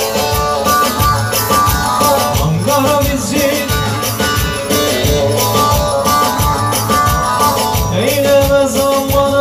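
A four-piece band playing Turkish folk dance music: a melody line over a steady drum beat and bass.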